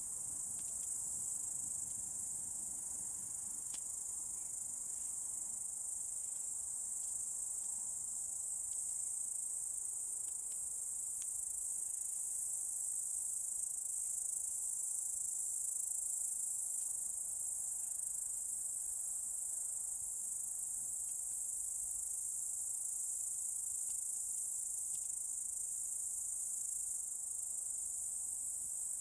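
Dense, steady, high-pitched chorus of crickets chirring without a break, with faint scattered crackles from a dying wood fire of damp plum and blackthorn branches.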